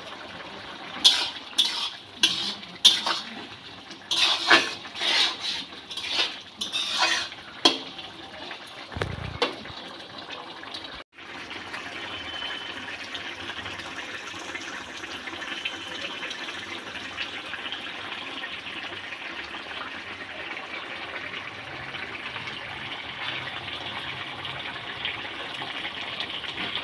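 Thick bottle gourd and shrimp curry bubbling in a metal kadai over a gas flame. It pops and spatters loudly and irregularly for the first several seconds, cuts out briefly about eleven seconds in, then settles into a steady simmering hiss.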